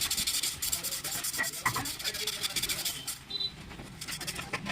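Rapid hand rubbing or sanding strokes, an abrasive scraped back and forth on motorcycle drum brake parts such as the shoe linings or the drum, to cure a squealing drum brake. The strokes are quick and continuous for about three seconds, then thin out.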